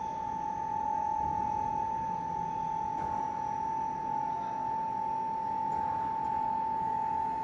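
A steady high-pitched electrical whine at one unchanging pitch, typical of a medium-frequency induction furnace running under power, over a low rumble of steel plant machinery.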